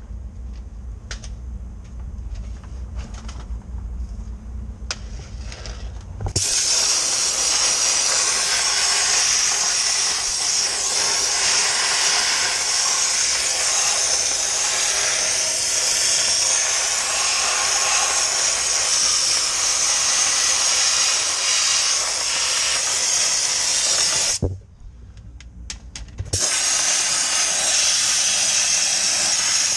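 Dry ice blasting gun firing: a loud, steady hiss of compressed air and dry ice pellets starts about six seconds in. It cuts off for about two seconds near the end, then starts again. Before the blast starts there is a low hum with a few scattered clicks.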